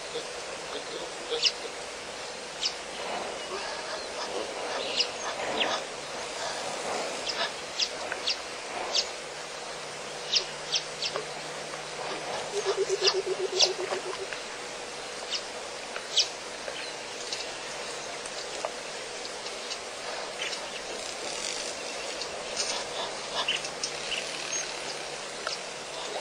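Birds chirping, many short sharp calls scattered throughout over a steady outdoor background, with one brief fast-pulsed call about halfway through.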